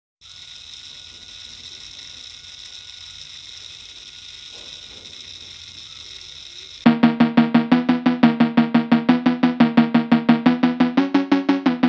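Small DC motor of a matchbox toy electric rickshaw running with a steady high-pitched hum. About seven seconds in, loud music with a fast pulsing beat, about five pulses a second, cuts in.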